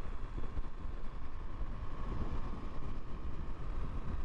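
Motorcycle running with a steady low rumble.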